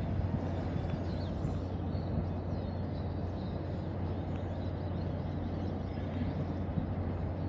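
Steady low hum of port and ship machinery across the water, over an even outdoor background noise, with a few faint high chirps.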